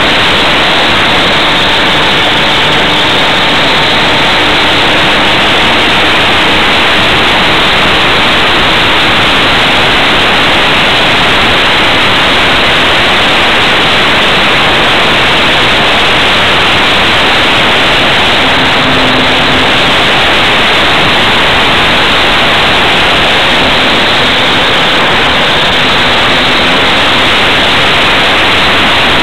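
Loud, steady rushing noise of airflow and propeller on the microphone of a camera fixed under a model plane's wing in flight, with a faint hum at times.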